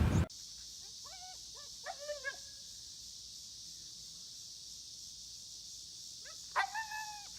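Dog whining in short, high, arching whimpers: a few about one to two seconds in and a longer group near the end, over a steady hiss.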